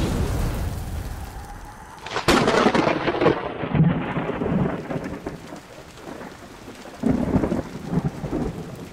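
Thunderstorm sound effect with rain: a sharp thunderclap about two seconds in rolls off into rumbling, and a second clap comes about seven seconds in.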